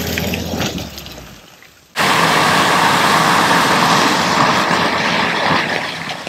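A Maruti Suzuki Ertiga driving slowly through wet mud, its engine running and its tyres working through the mud. That sound fades over the first second or so. About two seconds in it cuts abruptly to a louder, steady wash of vehicle noise, which eases off near the end.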